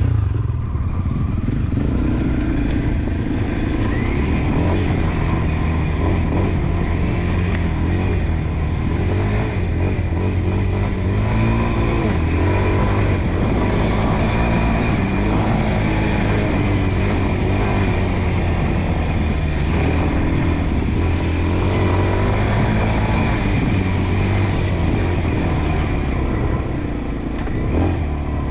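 Enduro dirt bike engine running under load on a trail ride, its pitch rising and falling over and over as the throttle is worked.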